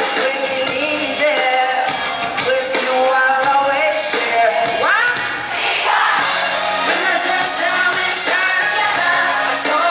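Woman singing a pop song live over a full band of electric guitar, bass, drums and keyboards, recorded from within an arena audience.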